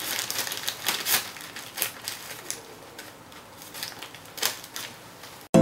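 Scissors snipping through a black plastic mailer bag, the plastic crinkling and crackling in short irregular clicks; it cuts off suddenly at the very end.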